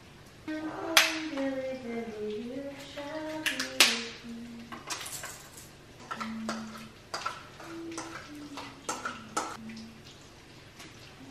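A voice humming a wandering tune without words, over sharp clinks of a spoon against a stainless steel mixing bowl and a glass baking dish; the two loudest clinks come about a second in and just before four seconds.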